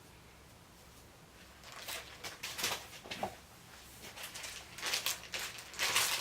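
Plastic bag rustling and crinkling in irregular bursts, starting a little before two seconds in, as it is handled with a battery light being slipped inside.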